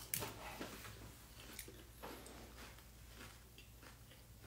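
Someone biting and chewing battered fried shrimp tempura, faintly, with a few short clicks scattered through.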